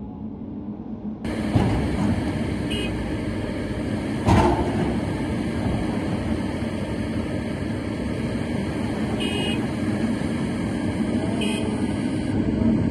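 Diesel engine of a heavily loaded truck carrying a large steel pipe section, running hard under load as it climbs a steep dirt slope; much louder from about a second in, with two sharp knocks early on.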